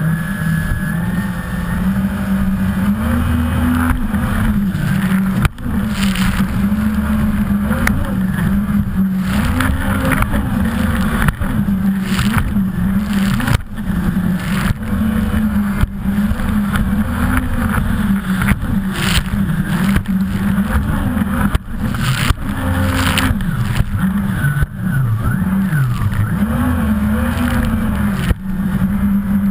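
Jet ski engines running at speed, the engine note rising and falling again and again, over a constant rush of spray and wind. There are a few brief dips in the sound.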